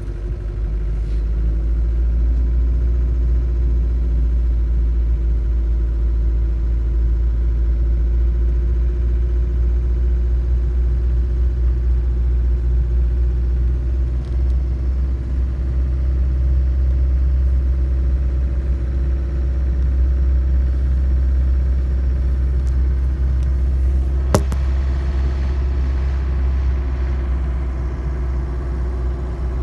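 Steady low rumble of a moving car's engine and road noise, heard from inside the cabin, with one sharp click about 24 seconds in.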